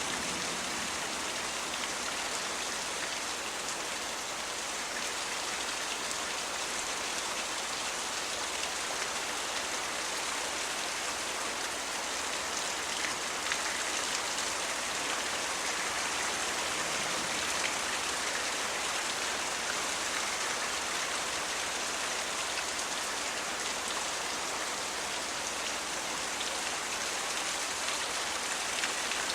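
Steady, heavy rain falling, an even unbroken hiss with no thunder.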